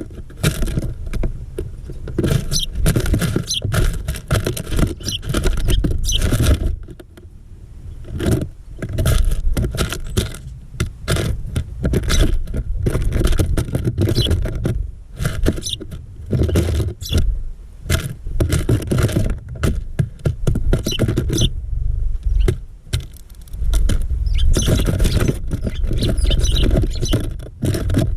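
Small birds feeding close up in a bird feeder: rapid irregular pecking taps, scratches and scrabbling thumps, with a few short high chirps.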